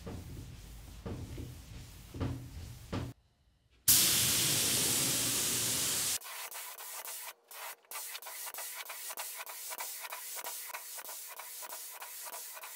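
Sanding block rubbed by hand over a car hood in rough scratching strokes. After a short break, a spray gun hisses loudly for about two seconds, followed by a quieter run of fast, even ticking.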